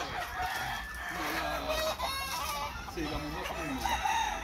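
Several gamecocks crowing and clucking from their pens, their calls overlapping.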